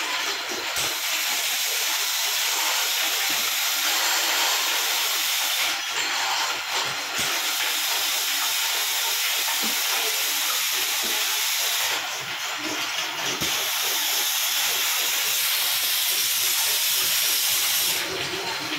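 Candle production line machinery running: a steady hiss that dips briefly about every six seconds, with scattered faint knocks.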